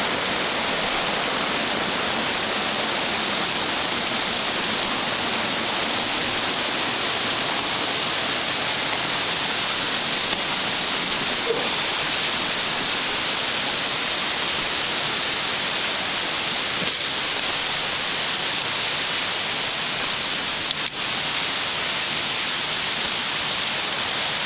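Rain-swollen mountain stream rushing, a steady, even hiss of water with no break. A few faint knocks sound in the second half.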